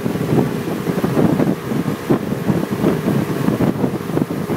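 Motorboat running at speed on a river, its engine and the rush of water under wind buffeting the microphone.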